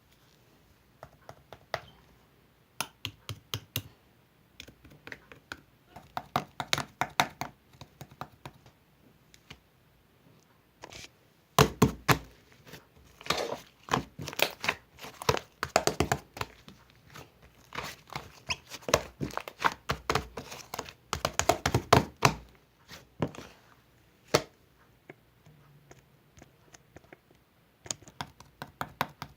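Slime being squished and pressed by hand, giving clusters of quick sticky clicks and pops with short pauses between; the clicking is sparse at first and densest through the middle.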